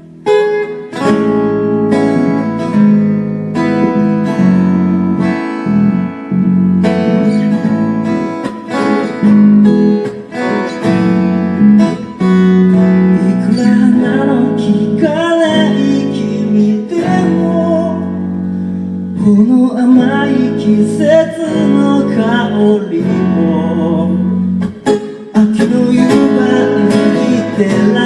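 Acoustic guitar being strummed and picked, with a singing voice over it for much of the second half.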